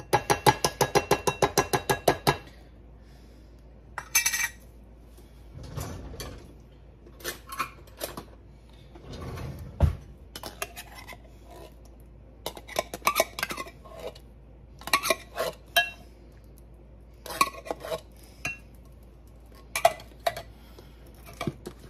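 A metal food can of black beans knocked rapidly against a glass mixing bowl, about seven ringing knocks a second for the first two seconds, to shake the beans out. Then scattered clinks and knocks of metal against glass for the rest of the time.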